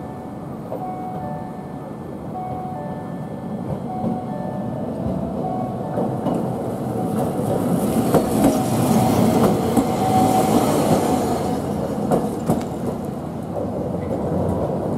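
Toei 8900-series tram passing close by: wheels rumbling on the rails, with a few clicks over rail joints, growing to its loudest at about eight to eleven seconds and then easing off. A level-crossing bell rings in the first few seconds.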